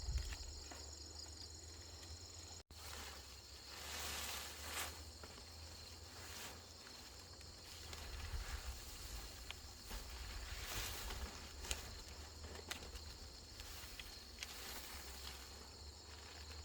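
Outdoor rural ambience: insects chirring for the first few seconds, then scattered light taps and rustles over a steady low rumble.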